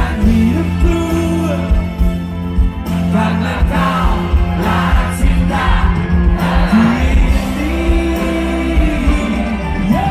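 Live rock band playing a pop-rock song, with a male lead singer holding long notes over drums, bass and keyboards.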